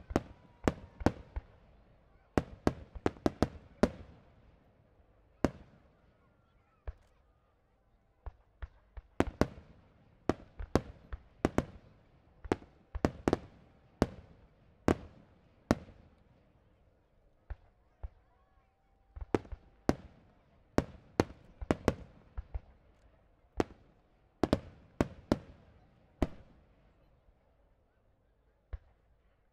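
Fireworks display: aerial shells bursting in a dense, irregular volley of sharp bangs, several a second at its busiest, with short lulls between clusters.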